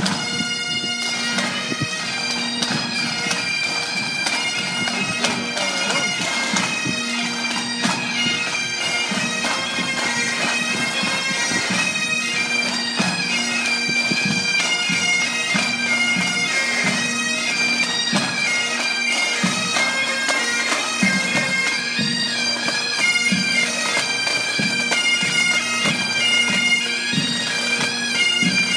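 A pipe band playing a march: a group of Great Highland bagpipes over their steady drone, with drums beating along.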